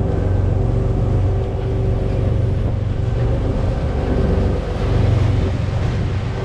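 A large party fishing boat's engine running steadily under way: a continuous low drone with a few constant tones.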